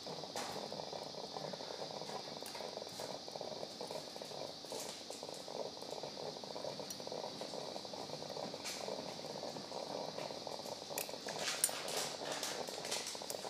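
Steady operating-room hum and hiss with scattered faint clicks of metal surgical instruments, needle holders and forceps, as a skin incision is sutured, the clicks bunching together near the end.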